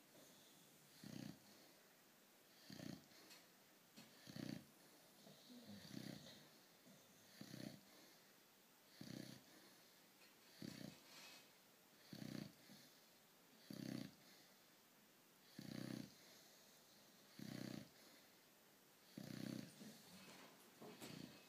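Faint, steady snoring: short snores in an even rhythm, about one every second and a half.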